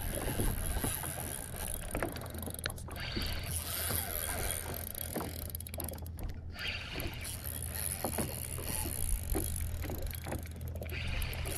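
Water slapping and lapping against a fishing boat's hull in choppy, wake-rocked water, with a steady low rumble and scattered irregular small splashes and knocks.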